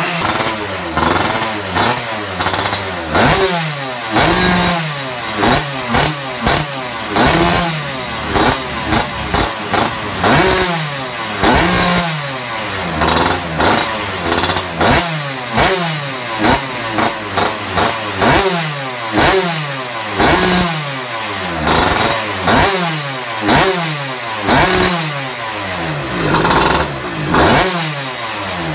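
Yamaha F1ZR two-stroke single-cylinder engine blipped repeatedly through an aftermarket racing expansion-chamber exhaust. It runs up in pitch and drops back with each blip, about one every second or two.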